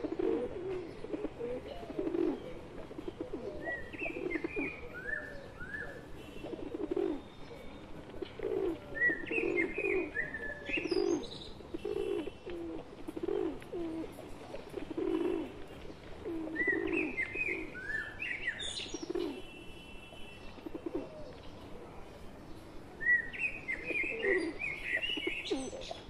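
A flock of feral rock pigeons cooing continuously, many overlapping coos. Another bird breaks in with short runs of higher chirps four times. Now and then a flutter of wings is heard.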